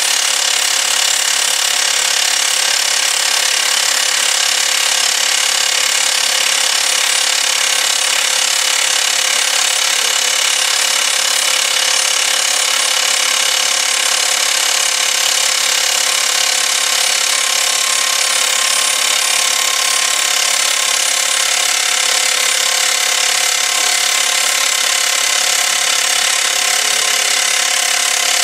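Excavator-mounted hydraulic top-hammer rock drill boring into rock: the drifter hammers and turns the drill rod steadily without a break, a mostly high-pitched mechanical noise with little low rumble.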